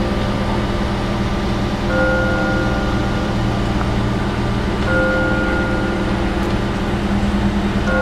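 Crane engine running steadily under load. A steady high tone sounds for about a second and a half every three seconds or so.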